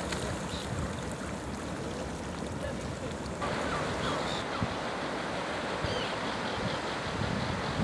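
Steady rush of sea surf with wind noise on the microphone. About three and a half seconds in the sound shifts, and a few faint short bird calls come through.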